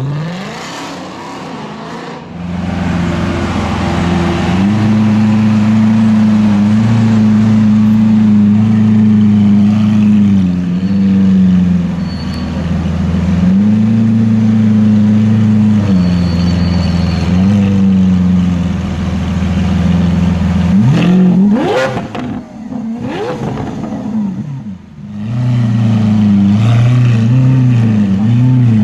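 Lamborghini Aventador Roadster's V12 with sports exhaust, idling loudly with small rises and dips in engine speed. About three quarters of the way through it is revved sharply, the pitch climbing and falling back, then a smaller blip, before it settles back to idle.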